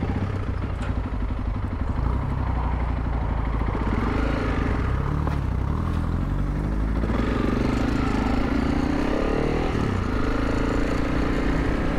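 Honda CRF300 Rally's single-cylinder engine running as the motorcycle is ridden, its pitch rising and falling with the throttle.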